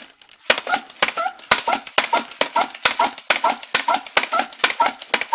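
Buzzbee Air Max 6 air-pressure dart blaster being pumped rapidly, about three strokes a second. Each stroke gives a click and a short squeak as air is pumped into its pressure chamber before the shot.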